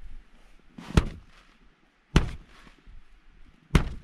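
Taps on the inside of a single-wall tent's fabric roof, which is wet with condensation: three sharp taps a second or so apart, each with a brief rustle after it.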